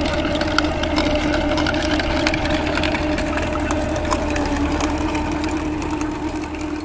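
Sonalika tractor's diesel engine running steadily under load as it drives a chain trencher through sandy soil, with a steady hum. Many scattered clicks and clatter come from the trencher's digging chain and the soil it throws.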